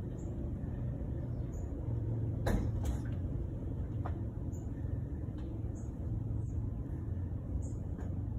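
Outdoor background: a steady low rumble, with faint short high chirps every second or so and a few sharp clicks about two and a half to four seconds in.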